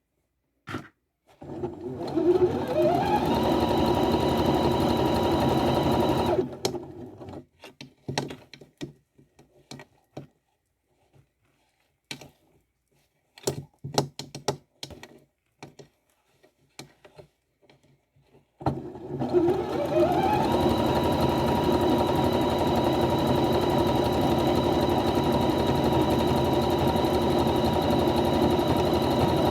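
Electric sewing machine stitching hair tracks onto a wig cap: it starts about a second in, speeds up with a rising whine to a steady run and stops about six seconds in. After a pause of scattered clicks and taps it starts again about 18 seconds in, speeds up the same way and runs steadily to the end.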